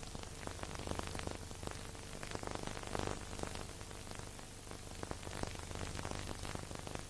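Steady hiss with scattered crackling clicks over a low, steady hum: the surface noise of an old recording, with no music or speech.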